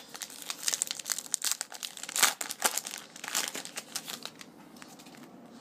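Wrapper of a Topps Magic trading card pack crinkling as it is handled and opened, mixed with the cards being squared up. A dense run of crackles, loudest about two seconds in, dying down after about four seconds.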